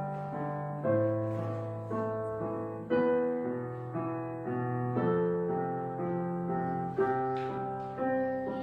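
Slow piano music, with notes and chords struck about once a second and left to ring.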